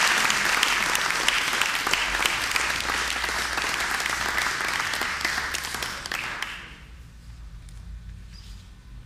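Audience applauding, the clapping fading away about six and a half seconds in.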